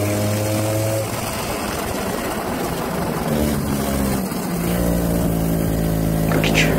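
Go-kart engine heard from the driver's seat: a steady note that breaks off about a second in, leaving a rushing noise, then comes back lower and steady from about three seconds on.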